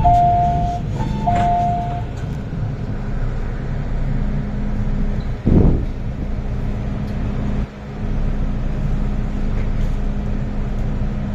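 Inside a Hong Kong MTR M-Train carriage: a two-note descending chime sounds twice in the first two seconds. Then the train's running noise follows, a steady hum over rumble, with a brief louder thump about five and a half seconds in.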